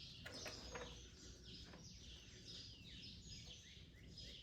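Faint birdsong: many short, falling chirps repeating, with a few light clicks in the first second.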